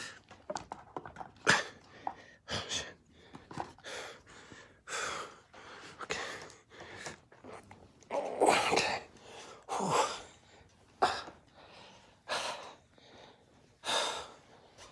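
A man's irregular, forceful breaths and huffs of effort as he hauls himself into bed with his arms while recovering from surgery, with bedding rustling. The loudest puffs come about two-thirds of the way through and again near the end.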